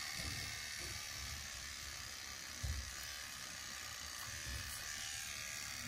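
Battery electric beard trimmer buzzing steadily as it cuts beard hair; its battery is running low. A brief low thump about two and a half seconds in.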